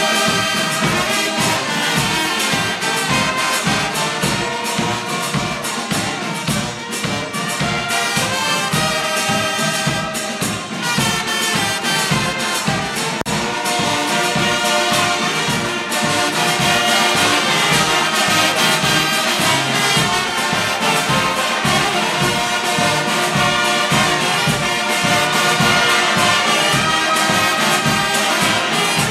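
Brass band of trumpets, trombones and tubas playing processional music, with a steady low beat about twice a second.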